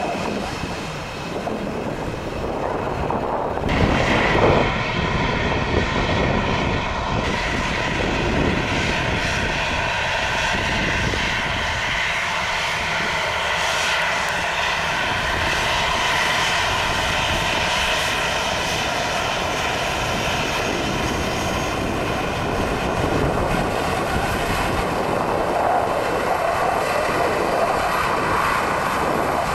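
Boeing 737 jetliners' turbofan engines running at low taxi power as the aircraft roll along the taxiway: a steady jet rumble with a layered whine, briefly louder about four seconds in.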